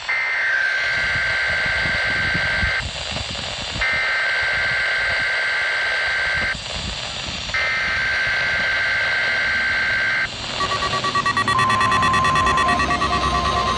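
Weather alert radios sounding their alarms for a required weekly test. First come three long two-pitch alert tones, each about three seconds, with a second's pause between them. About ten seconds in, this gives way to rapid beeping at several pitches at once, as more than one radio alarms together.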